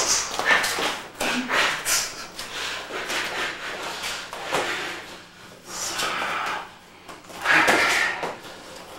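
Two wrestlers grappling on a gym mat: shoes shuffling and scuffing, with irregular thumps and slaps of bodies and hands in a small room.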